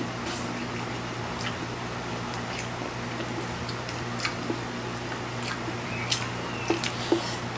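Close-miked mukbang eating sounds: noodles being slurped and food chewed, with scattered short wet clicks and smacks over a steady low hum.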